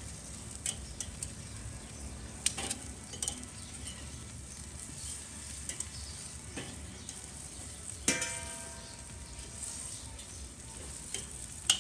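Pork ribs sizzling on the wire grate of a Weber kettle charcoal grill, with steel tongs clicking and clinking against the grate as the ribs are moved. One sharp metallic clink about eight seconds in rings briefly.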